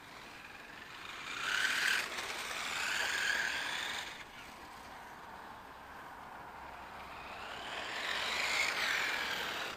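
Electric motor and gears of a 3D-printed radio-controlled car whining, the pitch rising and falling as the car speeds up and slows. It is loudest between about one and four seconds in, then again near the end.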